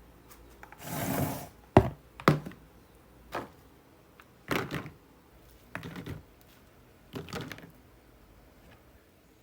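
Objects being handled and set down: an irregular series of sharp knocks and short clatters, with a brief rustling scrape about a second in.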